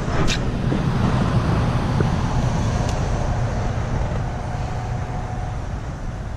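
Steady low rumble of road traffic, with a short click about a third of a second in.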